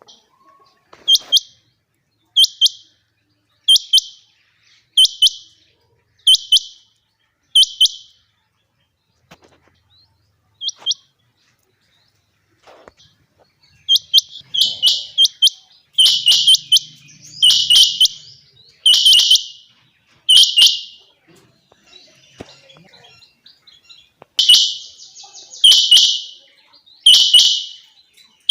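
Female quail calling: a series of short, high, repeated calls, evenly spaced about every second and a half, then after a brief pause the calls come back longer and closer together.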